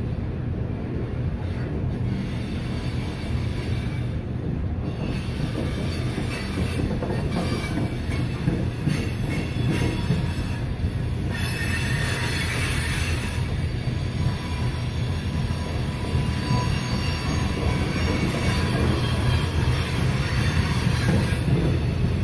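Freight train of CSX coal hopper cars rolling past a grade crossing: a steady rumble of steel wheels on rail, with some wheel squeal coming in about halfway through and again near the end.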